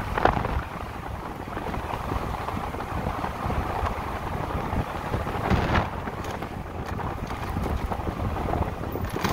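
Wind rushing over the microphone, with tyre and road noise from an electric motorcycle riding along at speed. Two short thumps stand out, one just after the start and one about five and a half seconds in.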